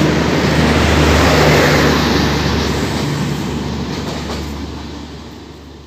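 Passenger train coaches running past at speed: a steady rumble of wheels on rails, loudest about a second and a half in, then fading away as the train recedes.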